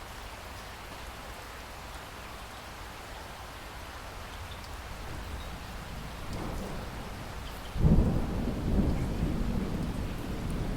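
Steady rain falling, with a thunderclap: a low rumble swells about six seconds in, then a sudden loud crack of thunder near the end rolls on in a deep rumble.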